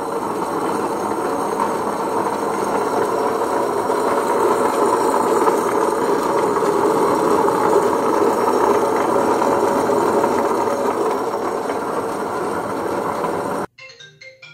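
Ultra Dura Plus tabletop wet grinder running, its motor turning two grinding stones in a cylindrical steel drum. A steady, loud running sound that cuts off suddenly near the end.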